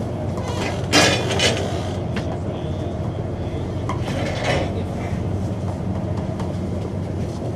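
Railway station ambience: a steady low rumble of trains with sharp metallic clanks and clinks, the loudest about a second in and another around four and a half seconds.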